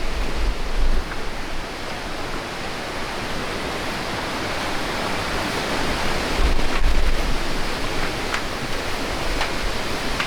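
Steady roar of the Iguazu River pouring over the falls, its current very strong and the water swollen by heavy rain to about four times its usual level. Wind buffets the microphone in low rumbles near the start and again just past the middle.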